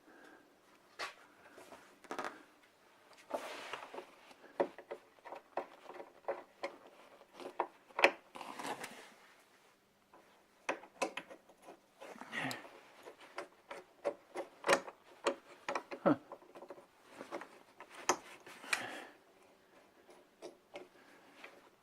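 Irregular clicks, knocks and short scrapes of hands and parts being worked while fitting the rear window hinge, with the sharpest knock about eight seconds in. A faint steady hum lies underneath.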